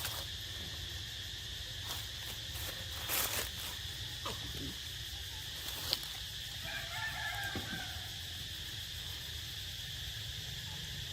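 Steady drone of insects such as crickets or cicadas, with a few short clicks and rustles and a faint brief call about two-thirds of the way through.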